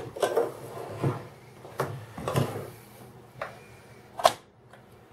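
Knocks and clatter of a countertop toast-and-grill appliance and its plastic parts being handled: about six separate knocks and scrapes, the sharpest near the end.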